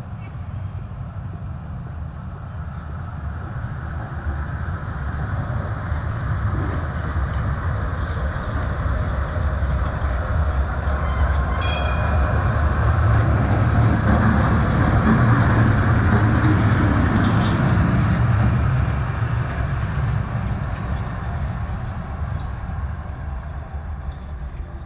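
A tram passing on its rails: a steady rolling rumble that swells to a peak about two-thirds of the way through and then fades away. A short high ringing comes about halfway in, with faint high wheel squeaks before it and again near the end.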